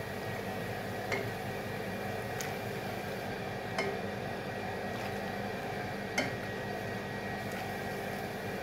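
A metal ladle scooping apricot juice from a pot and pouring it into a plastic bowl, the ladle clinking against the pot about five times at a steady pace over a steady background hiss.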